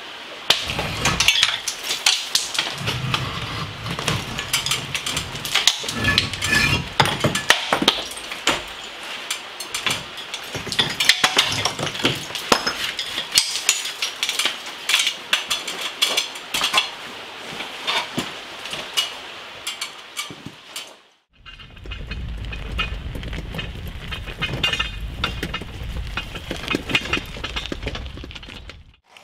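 Concrete blocks knocked loose and pulled off a mortared block wall: many sharp knocks, clinks and scrapes of block on block and chipping mortar. About three quarters of the way through this stops suddenly and gives way to a low steady rumble with faint crunching as a loaded hand truck is wheeled over gravel.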